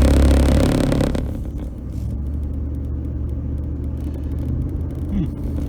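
Car engine and road noise heard from inside the cabin. It is louder for about the first second, then eases to a steady lower hum as the car backs off the throttle.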